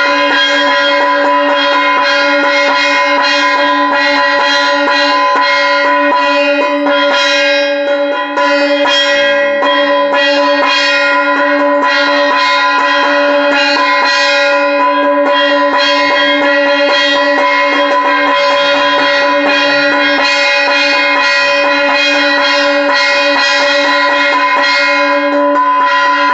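Puja hand bell rung rapidly and without pause during the aarti, its ringing tones held steady under fast, even strokes, with a brief dip about eight seconds in.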